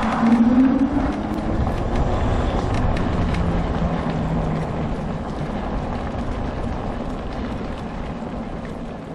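Homemade off-road mobility scooter riding along: a motor whine that rises in pitch about a second in, over a steady rumble from the ride, getting quieter near the end.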